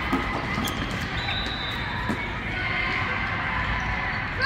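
Indoor field hockey game in a large gym: a steady background of distant voices and movement, with a few faint sharp stick clicks and a brief high shoe squeak about a second in.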